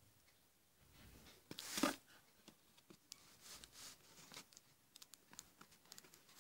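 Faint handling of a cardboard parcel: soft rustles and small clicks and taps, with one louder scuffing noise just under two seconds in.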